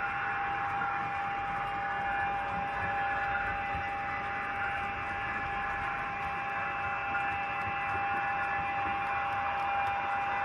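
HO-scale model train rolling along its track, heard from a camera riding on one of the wagons: a steady electrical whine over an even rolling hiss, with no change in pace.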